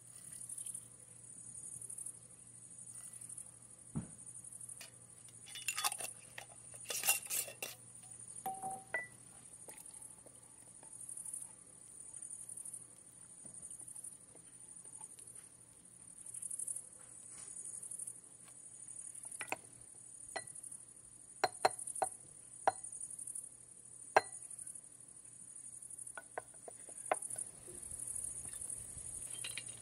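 Glass and utensils clinking and knocking on a wooden cutting board while a cocktail of lemon and mint is mixed with a wooden muddler: a cluster of clinks about six seconds in, then a run of sharp taps later on. Behind it, a faint high buzz swells about once a second.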